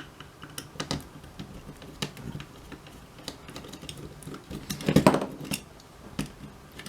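Scattered small clicks and taps of hand tools against the small plastic and metal parts of a mobile phone being taken apart, with a louder clatter about five seconds in.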